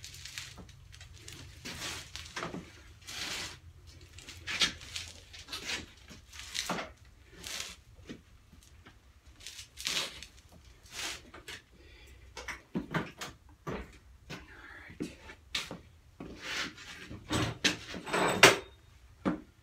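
Irregular rustles, clicks and light knocks of hands-on work close to the microphone, one every second or so, with a louder run of bumps near the end.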